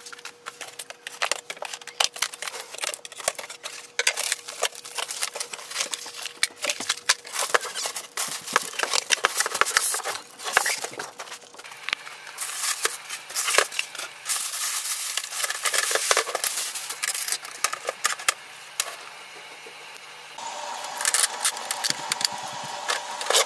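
Unpacking handling noise from a printer's packaging: crackly rustling of a plastic bag, squeaks and knocks of polystyrene foam and cardboard, and irregular clicks. Near the end, packing tape is pulled off the printer's plastic body.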